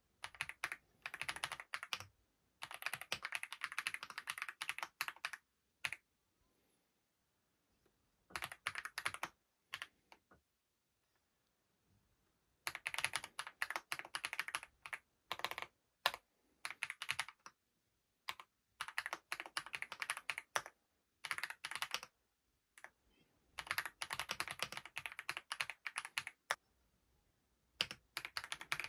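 Typing on a Wisely 99-key mechanical keyboard: several runs of fast key clicks, each a few seconds long, with pauses of a second or two between them.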